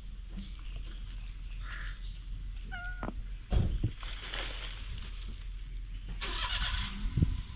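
Low steady rumble of road traffic, with a few dull knocks and a short high-pitched chirp about three seconds in.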